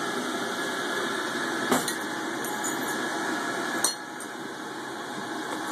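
Two sharp knocks of glass and metal tools being set down on a lampworking bench, over a steady background hiss that eases slightly after the second knock.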